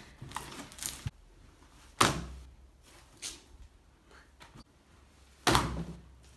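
Thick stretchy slime slapped down onto a tabletop: two soft thuds about three and a half seconds apart as a large sheet of it is lifted and dropped to trap air into a big bubble, with faint squishing between.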